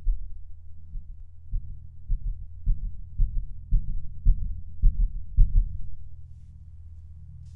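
Heartbeat sound effect: low, regular thuds about two a second over a steady low drone. The beats grow louder and then stop about six seconds in, leaving only the drone.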